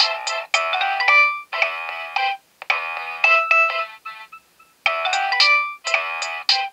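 Nokia 6820a polyphonic ringtone playing: a busy synthesized tune in short phrases, several notes at once. It drops out for under a second about four seconds in, then starts over.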